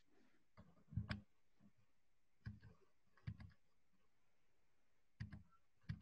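Faint, scattered clicks of computer input, about five short clusters of one or two clicks each, the loudest a little after a second in, against near silence.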